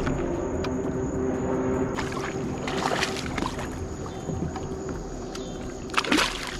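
A boat motor humming steadily, stopping about two seconds in, followed by a few irregular bursts of rustling or splashing noise, the loudest near the end.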